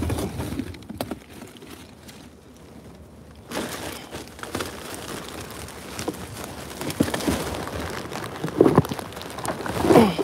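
Black plastic trash bag crinkling and rustling as gloved hands open it and dig through it, quieter for a couple of seconds, then busy again from about three and a half seconds in.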